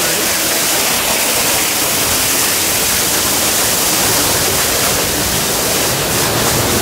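Steady rush of running water, an even, unbroken hiss.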